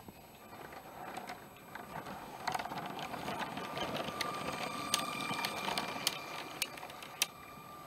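Lego toy train running on plastic track: a small electric motor whining steadily, with rattling and several sharp clicks from the wheels and track, loudest in the middle.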